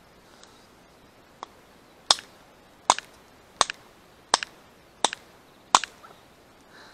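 Yakut knife blade chopping into the bone of a roe deer's hind leg: one light tap, then six hard chops about 0.7 s apart, each followed by a small second knock. These are blows hard enough to chip the blade's edge.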